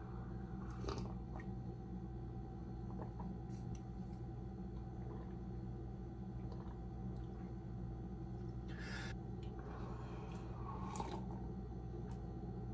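A few brief, soft sips of coffee, about a second in and again near the end, over a steady low room hum.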